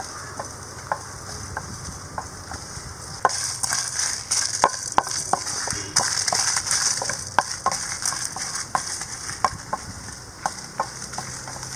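Whole spices (coriander seeds, peppercorns, dried red chillies and others) dry-roasting in an aluminium pan and stirred with a wooden spatula: irregular light ticks and scrapes of the seeds against the pan over a steady hiss that grows louder about three seconds in.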